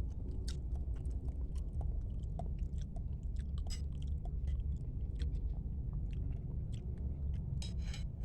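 Close-miked chewing of bakso meatballs and noodles: wet mouth clicks and smacks in quick, irregular succession, with a longer, brighter smack about four seconds in and again near the end.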